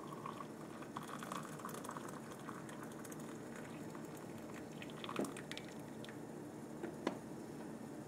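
Freshly boiled water pouring in a steady stream from a small Bodum Bistro electric kettle into a ceramic mug, with two light clicks in the second half.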